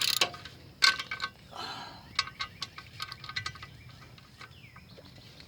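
Hand ratchet clicking and metal tools clinking as transmission bolts are worked. Sharp clicks with a short metallic ring, about five a second in the middle, thinning out toward the end.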